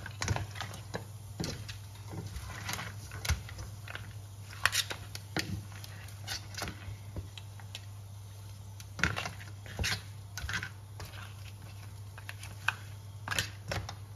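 Kitchen utensils clicking and knocking against a cooking pan while crab and tofu are handled in it: irregular light clicks, a few sharper, over a steady low hum.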